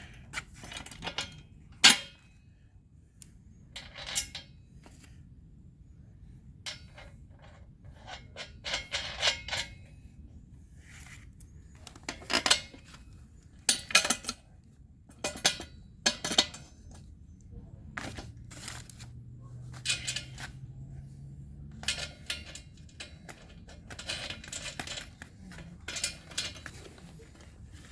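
Steel nuts, bolts and washers clinking and rattling as they are handled and fitted by hand, in irregular sharp clinks with short quiet gaps between.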